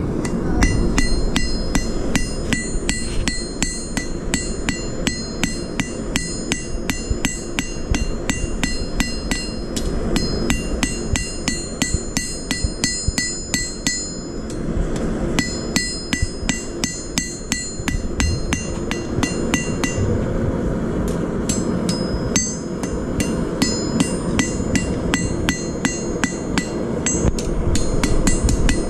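Blacksmith's hammer striking steel bar on an anvil in a steady rhythm of about three blows a second, each blow ringing, with a short pause about halfway. A steady low rumble runs underneath.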